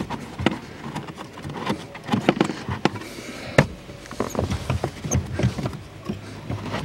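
Handling noise from a carbon cabin air filter being bent and worked into its plastic housing slot behind the pedals: irregular plastic clicks, knocks and rustles, with one sharper knock about three and a half seconds in.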